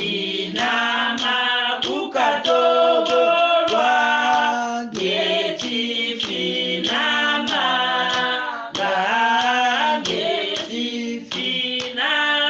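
A group of women and men singing a hymn in Kikongo, unaccompanied, moving together from one held note to the next.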